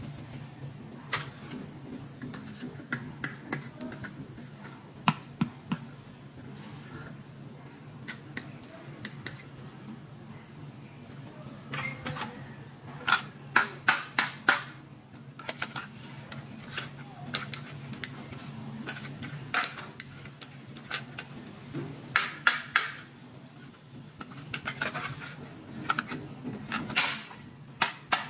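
Irregular sharp clicks and taps of small plastic toy pieces being handled, with quick runs of clicks in a few places, over a faint steady low hum.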